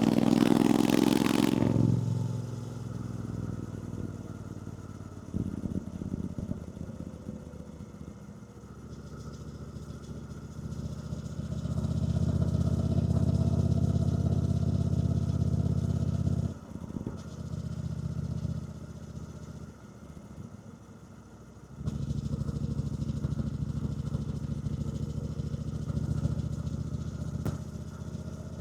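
A 2024 Triumph Bonneville T120's 1200cc parallel-twin engine being ridden, heard from on the bike. The throttle opens and closes several times, with strong pulls separated by quieter spells off the throttle. There is a brief loud rush of noise at the very start.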